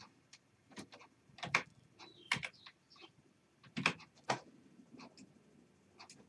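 Irregular clicks of a computer keyboard and mouse, several in quick pairs, with a few louder clicks spread through the middle.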